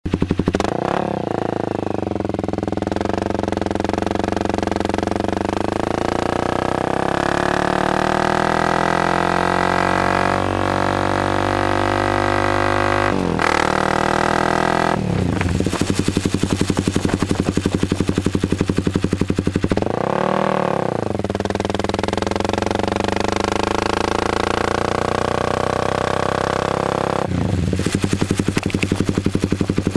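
2013 Honda CBR250R's single-cylinder engine through an MGP Growler aftermarket exhaust, under way. The revs climb steadily for several seconds, then drop sharply about halfway through. A quick rise and fall in revs comes around two-thirds of the way in, and a lower, choppier beat near the end.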